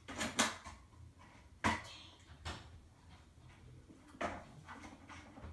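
A few sharp knocks and clatters of a plastic Lego airplane being handled and set down: a quick cluster at the start, a louder knock a little later, then two more spaced out.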